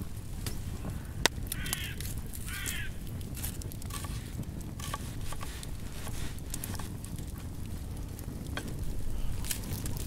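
Kitchen knife cutting an onion on a wooden cutting board: irregular light taps and clicks of the blade against the wood. Two short bird calls come about two seconds in, over a low wind rumble.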